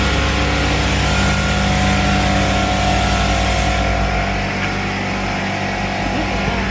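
Steady drone of a running motor with a low hum, its lowest part easing a little about four seconds in.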